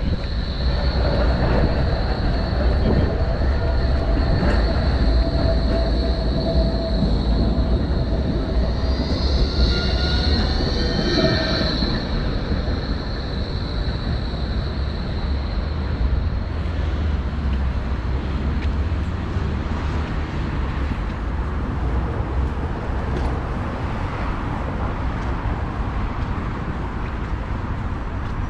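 A rail vehicle running past close by: a heavy low rumble with high, steady wheel squeal that swells about ten seconds in and stops around twelve seconds, after which the rumble eases.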